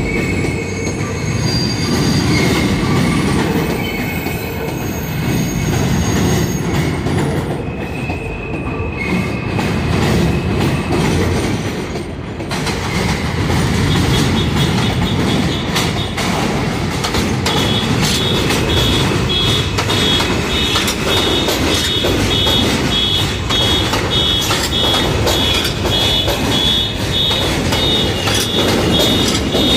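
New York City subway train running through the station on the steel elevated structure: a steady heavy rumble with wheel clatter. From about halfway through, the wheels squeal in high, evenly repeating pulses.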